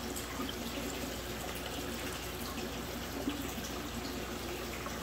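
Water running steadily through an aquarium rack's PVC drain plumbing into a common sump, a continuous trickling rush with a faint low hum underneath. One small click a little past three seconds in.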